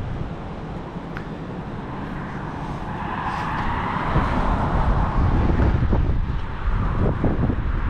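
Strong wind gusting and buffeting the microphone with a heavy low rumble. A louder rushing swell builds about three seconds in and fades a few seconds later.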